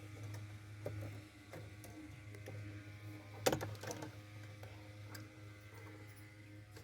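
Parts and tools being handled while working on a washing machine: scattered light clicks and ticks, and one louder knock about three and a half seconds in, over a steady low hum.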